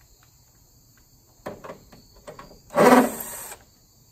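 Cordless drill with a socket spinning out a bolt in one short run of just under a second, about three seconds in, after a few light clicks of the socket going onto the bolt. Crickets chirp faintly throughout.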